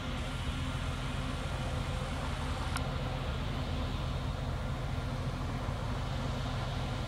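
PESA ATR220 diesel multiple unit running its diesel engines with a steady low hum as it approaches slowly, entering the station after waiting for the signal to clear.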